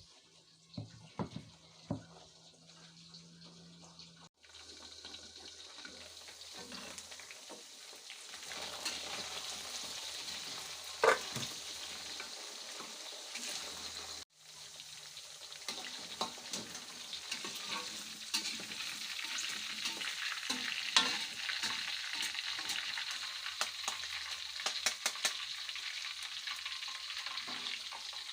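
Food sizzling in hot oil in a frying pan while it is stirred with a spatula, with occasional sharp knocks of the spatula against the pan. A few light clicks come before the frying starts about four seconds in.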